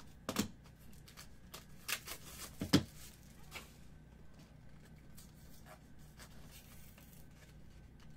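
Utility knife slitting the seal of a small cardboard trading-card box, then the box being opened and handled: a few sharp scrapes and snaps in the first three seconds, the loudest about three seconds in, followed by faint rustles and ticks of cardboard.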